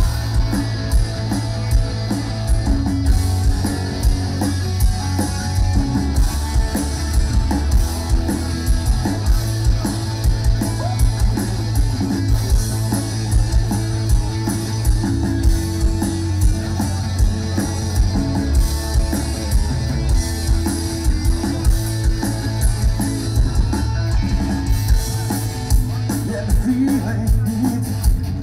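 Rock band playing live: distorted electric guitars, bass guitar and a drum kit keeping a steady beat.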